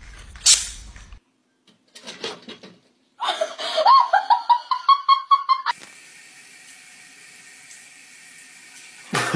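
A high-pitched voice pulsing rapidly, like laughter, a few seconds in, followed by tap water running steadily into a bathroom sink for the last few seconds.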